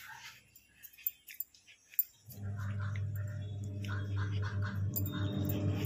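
Light clicks and handling noise, then a steady low electric hum that starts suddenly about two seconds in and holds at an even level.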